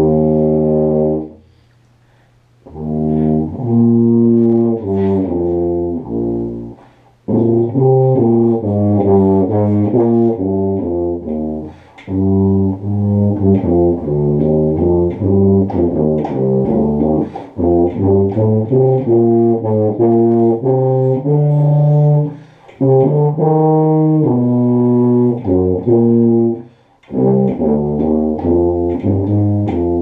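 Tuba played solo: a melody of held low brass notes moving from pitch to pitch, broken by a few short pauses.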